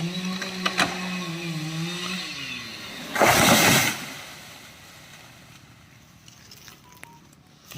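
Chainsaw running at high revs, then the throttle is released and the engine note drops away. About a second later comes a loud, short rush of noise lasting under a second, then it goes much quieter.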